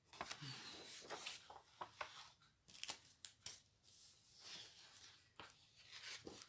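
Faint rustling and crinkling of clear plastic sleeves and card as small metal cutting dies are handled, with a few light clicks and taps.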